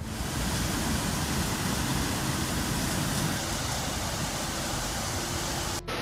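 Heavy downpour in strong wind: a steady rush of rain with a rumble underneath. It breaks off briefly just before the end.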